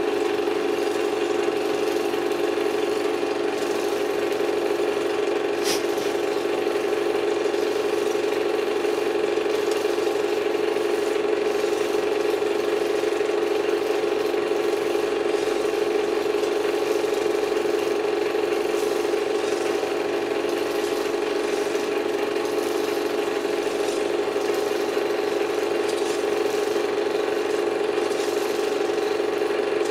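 Projector running with a steady, unchanging hum, and one brief click about six seconds in.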